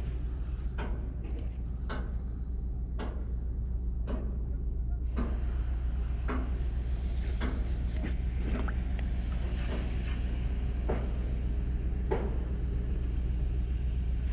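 Spinning reel and rod being worked during a lure retrieve: irregular light clicks and taps, about one a second, over a steady low rumble.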